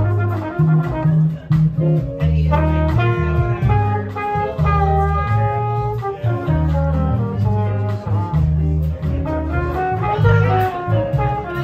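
Small jazz combo playing a bossa nova live: trumpet on the melody over electric bass, keyboard, guitar and drums, with the bass notes prominent.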